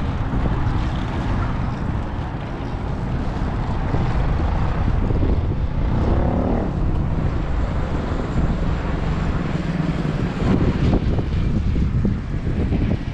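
Windy street ambience on a city bridge: a steady low rumble of wind on the microphone with road traffic going by. About six seconds in, a passing vehicle's engine rises in pitch as it speeds up.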